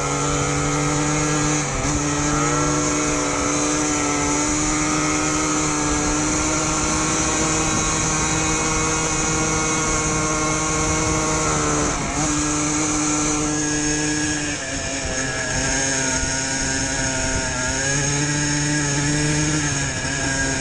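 ATV engine running steadily under way. Its pitch dips briefly and climbs again about 2 and 12 seconds in, then settles at a lower note after about 14 seconds.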